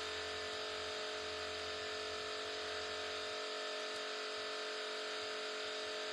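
Steady machine hum made up of several constant tones, with a deeper low hum under it that drops away about three seconds in.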